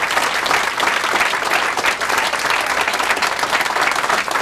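Audience of a few dozen people applauding steadily, a dense patter of many hands clapping.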